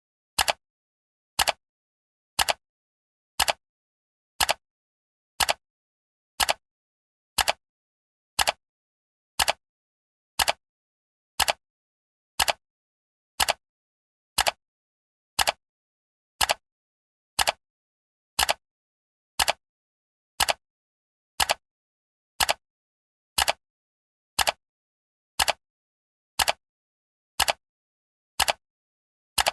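Countdown timer's ticking sound effect: one sharp clock tick every second, with dead silence between ticks.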